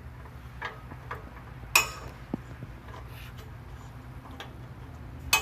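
Scattered metallic clicks and taps of hand tools working on exhaust bolts and hardware under the car, with a sharper click about two seconds in and another near the end, over a low steady hum.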